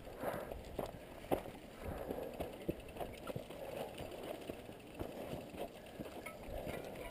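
Footsteps on a dirt trail and the rattle of mountain bikes being pushed uphill: uneven knocks and clicks with no steady rhythm.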